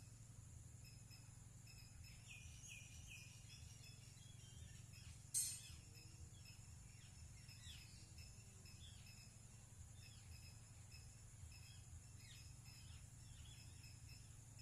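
Faint outdoor ambience: scattered small bird chirps over a steady low hum and a high hiss, with one short, sharp, high sound about five seconds in.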